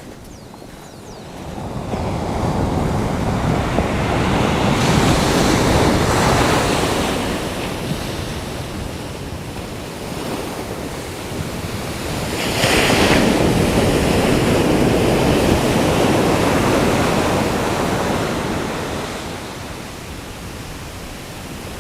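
Ocean surf breaking on the shore: two large waves build, crash and wash back, the second with a sharper hissing crash about halfway through.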